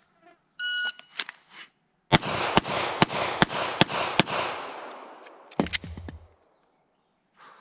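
A shot timer's start beep, then about a second and a half later a rapid string of 9mm Glock pistol shots, about four a second over two seconds, each with a short echo, from the beep to the last shot about 3.6 seconds.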